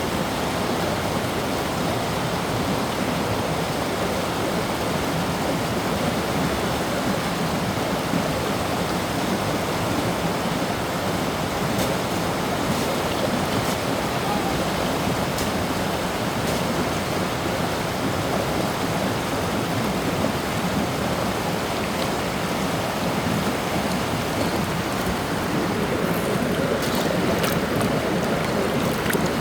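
A creek rushing steadily over rocks, an even, unbroken noise, with a few faint clicks in the middle and near the end.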